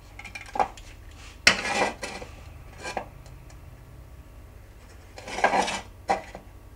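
A hand tool scraping and cutting at a plastic drill housing in a handful of short bursts, with clinks of the tool against it, as the housing is shaped to fit a battery.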